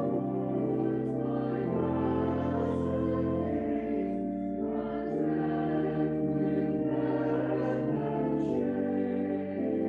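Slow church offertory music: sustained chords with held deep bass notes, the notes changing every second or two.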